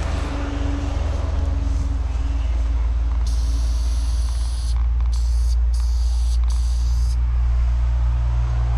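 Aerosol spray-paint can hissing in short bursts while outlining letters: one of about a second and a half, then three quick ones, over a steady low rumble.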